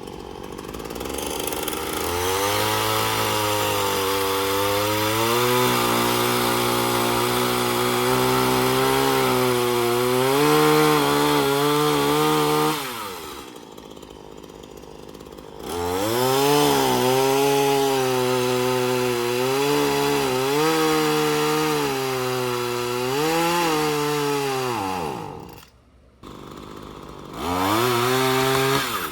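Gas chainsaw running at full throttle while cutting wood, its engine pitch sagging and recovering under load. It drops back to a low idle about thirteen seconds in, revs up again for about ten seconds, goes almost quiet briefly, then revs once more near the end.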